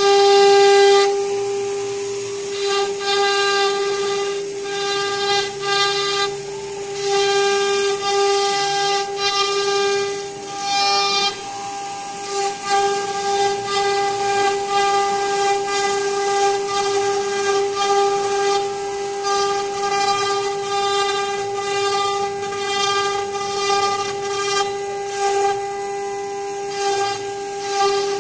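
CNC router spindle running with a steady high whine while its V-bit carves into a wooden door panel. A rougher cutting hiss rises and falls as the bit moves through the wood.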